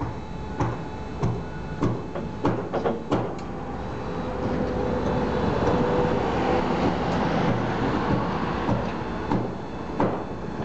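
Nichiyu rack forklift's fork head turning at the top of the mast: a run of clicks and knocks over the first three seconds or so, then a steady mechanical whir with a faint hum from about four seconds in, and a knock near the end.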